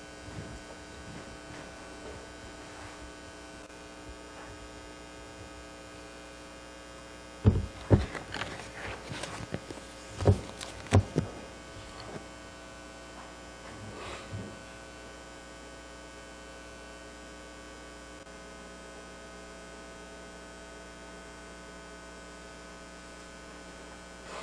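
Steady electrical mains hum in the sound system. A few loud thumps and knocks fall between about seven and eleven seconds in, and a softer one comes a few seconds later.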